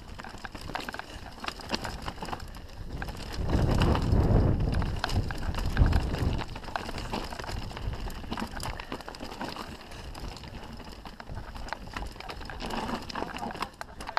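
Canyon Strive enduro mountain bike descending a rough, rocky trail: tyres rolling over dirt and stones, with the bike's chain and frame rattling in many sharp knocks. Wind rumble on the camera microphone is heaviest in the middle, with a smaller surge near the end.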